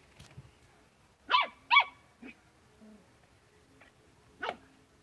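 Small dogs barking in play: two quick, sharp, high-pitched yaps a little over a second in, a fainter short one just after, and another bark near the end.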